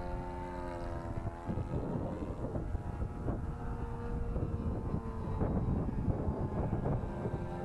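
Nitro glow engine of a radio-controlled model airplane droning in flight, its pitch rising and falling as the plane passes and the throttle changes. Wind rumbles on the microphone.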